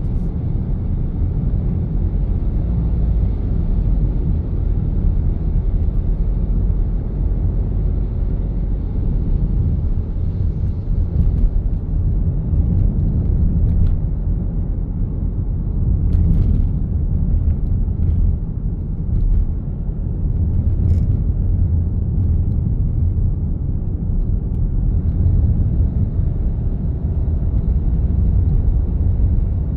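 Steady low rumble of a vehicle driving on a road, engine and tyre noise with passing traffic, with a couple of faint ticks partway through.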